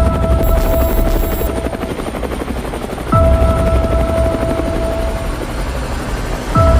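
Opening of a K-pop track: a helicopter rotor sound effect runs under the music. About every three and a half seconds a held synth tone enters with a deep bass sweep dropping in pitch.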